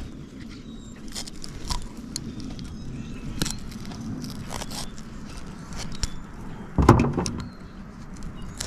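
Metal parts and hand tools clinking and knocking in irregular small clicks as a stubborn part is worked loose, with one heavier knock about seven seconds in.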